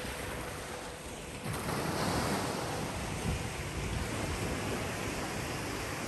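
Small waves breaking and washing up on a sandy beach, with wind buffeting the microphone. The wash swells about a second and a half in.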